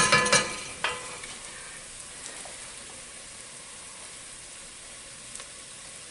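Onions and paprika frying in an enamelled pot, a steady low sizzle. Right at the start a wooden spoon knocks a few times against the pot with a short ringing clank, the last knock about a second in as the spoon is laid across the rim.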